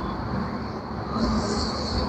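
Sewer suction tank machine's engine running steadily with a low rumble; a hiss comes in about a second in.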